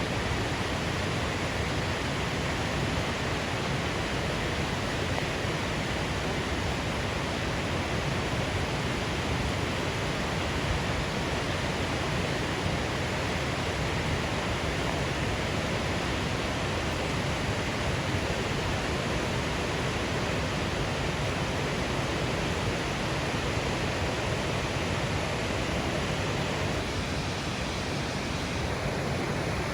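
Waterfall: a steady, even rush of falling water with no break.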